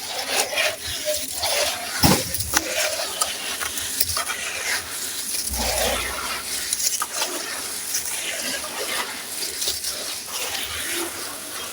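Gritty sand cement crumbling in water, a dense crackle of small crunches and wet sloshing, with one heavier knock about two seconds in.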